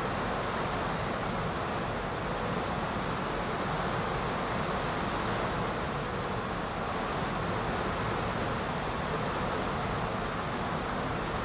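Steady rushing background noise at an even level throughout, with no distinct events.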